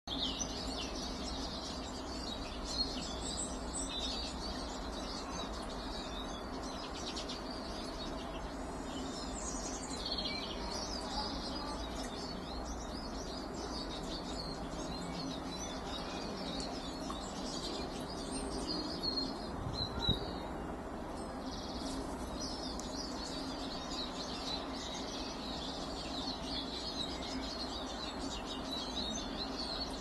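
Small garden songbirds chirping and twittering continuously over a steady low background noise with a faint hum. A single low thump about two-thirds of the way through.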